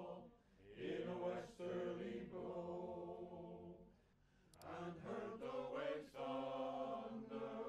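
Background music of voices singing in chant or choir style, holding long chords in phrases of one to two seconds with short gaps between them.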